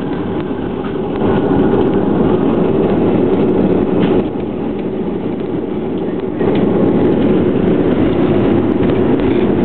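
Cabin noise of a Boeing 737-500 on its landing rollout: a steady rumble of its CFM56 engines and of the wheels on the runway. The rumble grows louder about a second in and again about six and a half seconds in.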